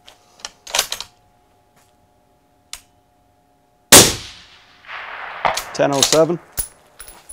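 A single precision rifle shot just before four seconds in, sudden and the loudest sound, its report trailing off over about a second. A brief sharp noise comes about a second earlier.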